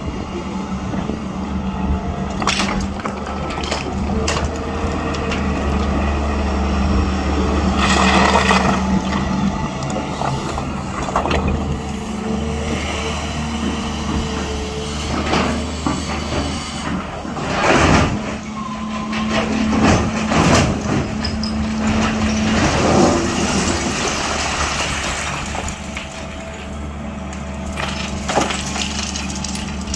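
SANY 365H long-boom excavator at work: its diesel engine runs steadily while short loud bangs, scrapes and hisses from the bucket and hydraulics come every few seconds, thickest about eight seconds in and again in the second half.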